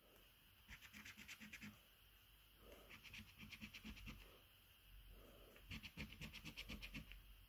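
A coin scraping the scratch-off coating of a Cashword scratchcard in quick back-and-forth strokes, about ten a second. It comes in three faint bursts of about a second each, with short pauses between.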